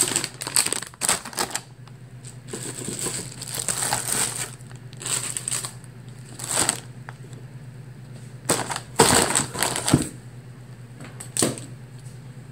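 GoPro camera accessories and their packaging being handled and packed away: irregular rustling with a few clicks and knocks.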